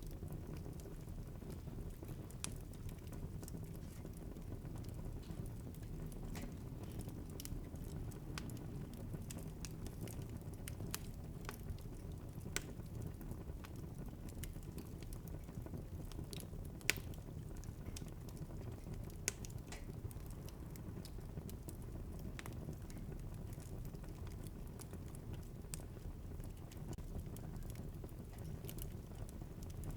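Wood fire burning in a fireplace: a low steady rush of flame with irregular sharp crackles and pops, a few louder pops scattered through.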